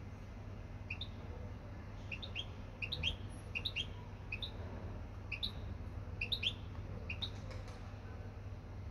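European goldfinch giving short, sharp chirps, singly and in quick runs of two or three notes, loudest about three seconds in and again around six seconds.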